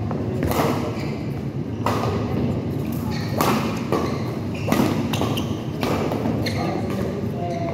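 Badminton rackets hitting a shuttlecock in a rally: five sharp smacks about a second and a half apart, each echoing briefly in a large hall, over a steady low hum.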